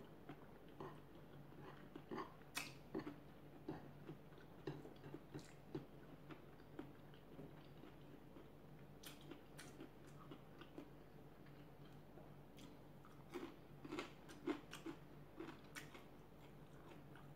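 A person chewing a mouthful of rice and chopped pork sisig close to the microphone: soft, faint mouth sounds with small crunches and smacks. The crunches come in a run during the first few seconds and again in a second run past the middle.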